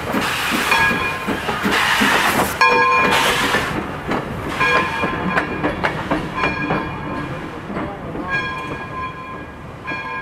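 Essex Terminal Railway #9, a coal-fired 0-6-0 steam locomotive, chuffing loudly as it passes close by. Its wheels click over the rails with intermittent high metallic ringing, and the sound fades as it moves away.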